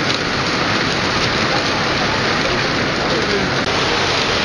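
Heavy hail falling steadily onto a flagstone patio and lawn, a dense, even patter with no break.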